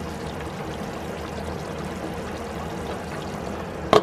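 Chicken afritada in tomato sauce simmering in a pot, a steady bubbling hiss. Near the end, one sharp clink as the pot's glass lid goes on.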